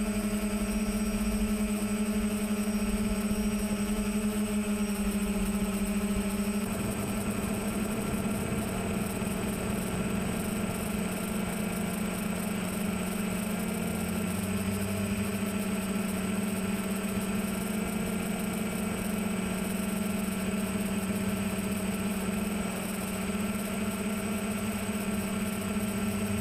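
Multirotor drone's electric motors and propellers humming steadily in flight, with a small shift in the hum about seven seconds in.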